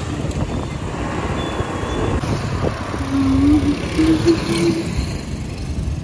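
Road vehicle running, heard from on board: a steady rumble of engine and road noise.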